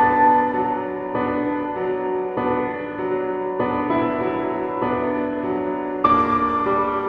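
Background music: soft piano playing sustained chords that change about every second or so.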